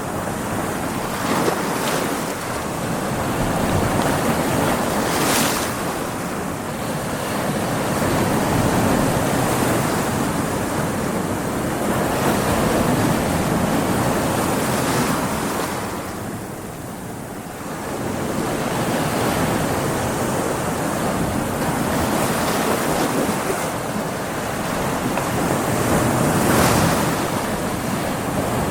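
Ocean waves breaking against rocks: a continuous rush of surf that swells and eases, with short sharper splashes now and then and a brief lull about two-thirds of the way through.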